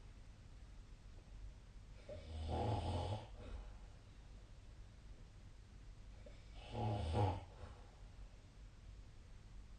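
A person snoring in sleep: two snores, each about a second long, about four seconds apart.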